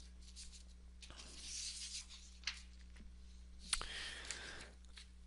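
Faint clicks and rustling over a low steady hum, with a sharp click about two and a half seconds in and another just before four seconds.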